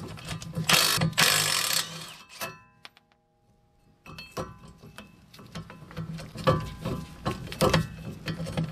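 Cordless Milwaukee impact wrench on an extension running in two short bursts about a second in, backing out the 10 mm bolts that hold a wheel hub and bearing assembly. This is followed by sharp clicks and knocks of the tool and loosened bolts against the hub.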